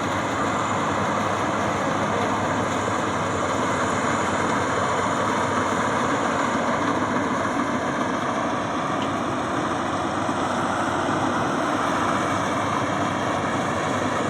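Maxxi Bimo 102 combine harvester's engine running steadily, a loud continuous drone with no change in pitch.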